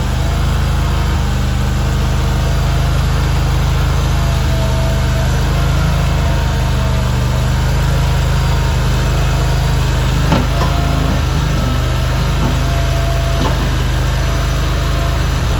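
Vorx NL380 mini skid steer's 23 hp RATO V-twin gasoline engine running steadily, with a single sharp knock about ten seconds in.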